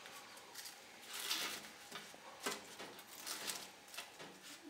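Soft crinkling and scraping of aluminium foil on a baking sheet as hands and a metal spoon work butter onto roasted garlic bulbs. There are a handful of short, faint rustles.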